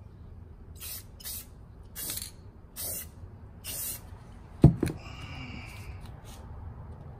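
Aerosol spray can hissing in five short bursts as a first coat is sprayed onto a terracotta pot. About four and a half seconds in comes a sharp knock, the loudest sound, followed by a brief ringing tone.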